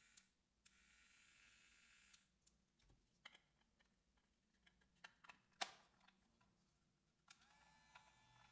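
Faint clicks and taps of hard plastic toy-airplane parts being handled and pressed together, with a cluster of sharper clicks a little past halfway as the fuselage snaps onto its base.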